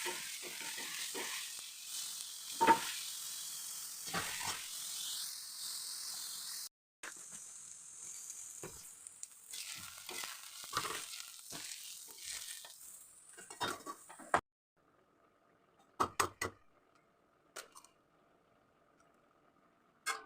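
Onion and beaten egg sizzling in hot oil in a frying pan, with scrapes and knocks of a spatula stirring. The sizzle breaks off briefly near 7 s and stops abruptly about 14 s in, leaving a few faint clicks and a low hum.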